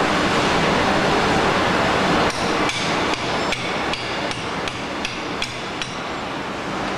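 Motorcycle wheel rim roll forming machine running with a loud, steady mechanical noise. About two seconds in, regular ringing metallic clanks start, about two and a half a second.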